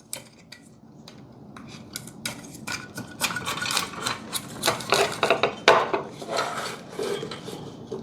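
Toothed drive belt of a smart electric curtain track being threaded by hand through the gearbox and track: a busy run of irregular clicks and rubbing.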